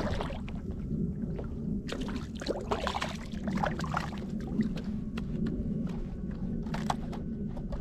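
Water splashing and lapping at the side of a fishing kayak as a hooked trout is reeled in to the hull, with many short splashes and crackles between about two and seven seconds in, over a steady low rumble.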